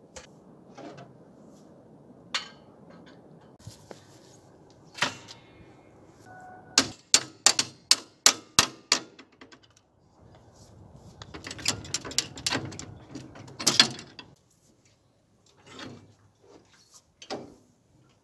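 Small hammer tapping on the steel hitch of a walk-behind tractor while a potato digger is coupled on: a quick run of about nine sharp metal-on-metal strikes, about four a second. Then comes a denser clatter of knocks and rattling metal, with scattered single knocks before and after.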